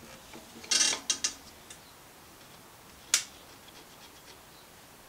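Sharp metal clicks and clanks from a lathe chuck being handled, with an aluminium workpiece in its jaws: a short rattling cluster about a second in, then a single sharp click after about three seconds.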